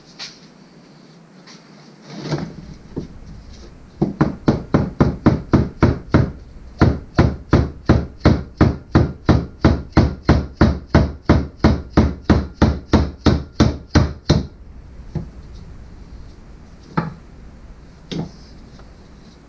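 Rubber mallet tapping the rear main seal home on a Ford 4.6 SOHC engine: a few single knocks, then a steady run of about three blows a second for some ten seconds, then a few more single knocks.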